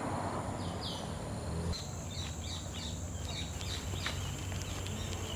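Outdoor ambience: small birds chirping in short repeated calls, with a steady high insect trill setting in about two seconds in.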